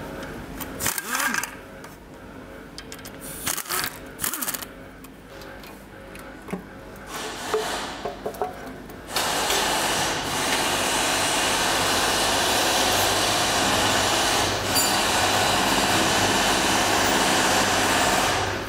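Pneumatic ratchet spinning in short bursts as it undoes the oil pan bolts of a G4KE engine. From about halfway a loud, steady rushing noise takes over and cuts off sharply near the end.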